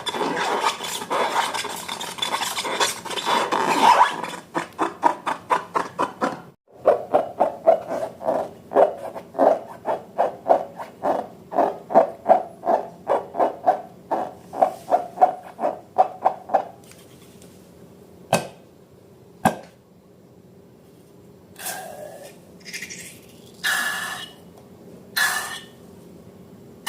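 Slime being stirred and scraped in a bowl with a utensil: dense scraping at first, then a steady run of repeated strokes at about two a second. After the strokes stop, there are two sharp clicks and a few brief scrapes near the end.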